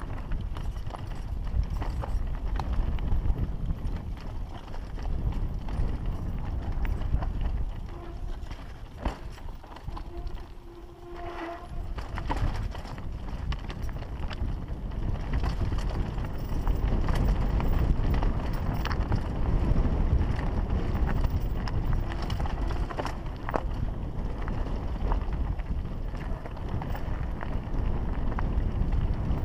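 Mountain bike riding over rocky singletrack: tyres crunching on loose stones, the bike rattling with many sharp knocks, under steady wind rumble on the microphone. The noise eases for a moment about ten seconds in, then picks up again.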